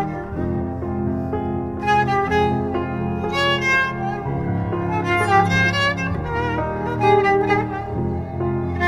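Background music: a kamancheh's bowed melody with vibrato over sustained low notes.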